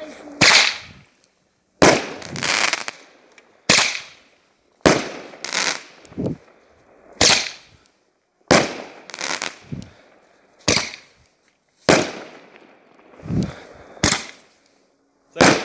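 Aerial fireworks going off in a rapid series of sharp bangs, about a dozen, roughly one every one to two seconds, each dying away in a short echo.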